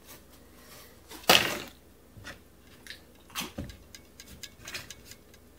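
Cardboard candy packaging rustling and crinkling as it is handled, with one loud rustle a little over a second in, a shorter one past the middle, and scattered small clicks.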